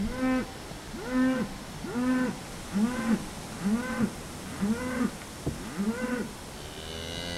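Cattle mooing: seven short calls in a steady rhythm, a little under one a second, each rising and then falling in pitch. A longer, different call begins near the end.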